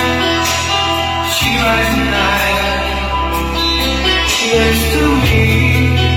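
A song with guitar and singing played loud through a hi-fi system: an Onkyo TX-SR607 receiver driving 12-inch studio monitors and a 15-inch subwoofer. Heavy sustained bass notes change pitch three times, with cymbal hits above.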